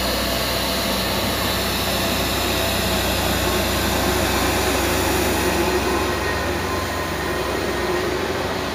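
Heavy truck's diesel engine running steadily close by: a deep, even low hum with a dense wash of mechanical noise above it.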